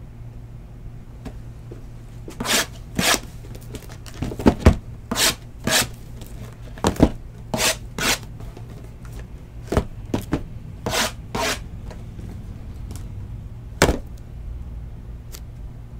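Sealed trading-card boxes being handled and unwrapped: a dozen or so short, irregular scraping and tearing noises of cardboard and wrapping, over a steady low hum.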